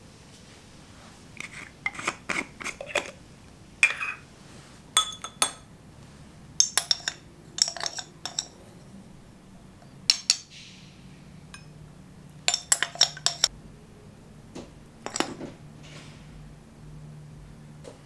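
A spoon clinking and tapping against a glass bowl and a saucepan as cocoa powder is scooped into the pot: irregular clusters of sharp clinks, some with a brief high ring.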